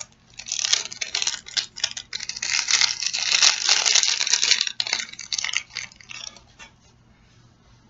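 Plastic packaging crinkling and crackling in the hands as it is torn open. The crackling is dense at first, thins out, and stops about a second before the end.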